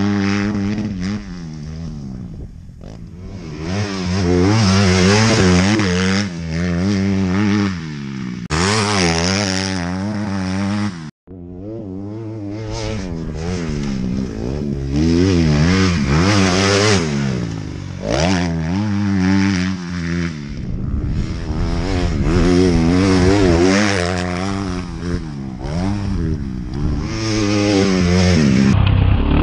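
Dirt bike engine revving up and down as it accelerates and shifts, its pitch rising and falling over and over. The sound cuts out for a moment about eleven seconds in.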